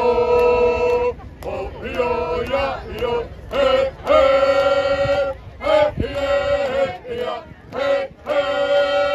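A group of men's and women's voices singing together in unison, in long held phrases of about a second, each broken by a short pause.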